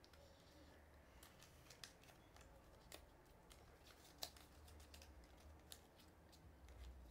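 Faint paper handling: a small sheet of paper being folded and creased by hand, with scattered soft ticks and crinkles a few times a second apart.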